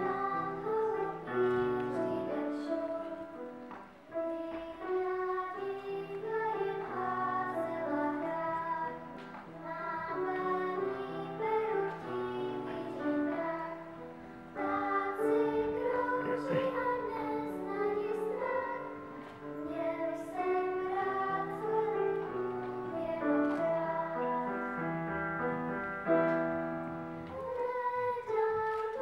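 Three young girls singing a song together, their voices carried over an instrumental accompaniment that holds steady low notes beneath the melody.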